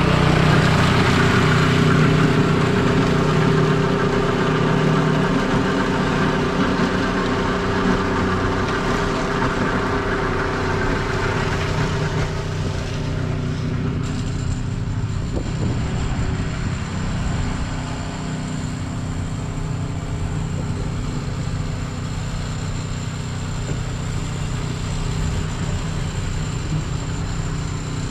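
An engine of snow-removal equipment running steadily, louder for about the first twelve seconds and then easing to a lower, steady level.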